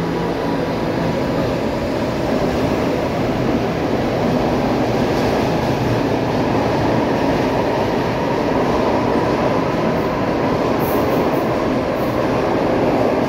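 PATCO Speedline train pulling out of an underground station, the cars passing close by with a steady, loud rumble of steel wheels on the rails.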